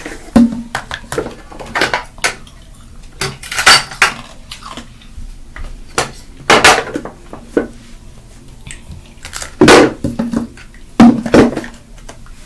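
Hard objects clinking and knocking against a hard surface as they are handled and set down, in irregular clatters with several sharper knocks.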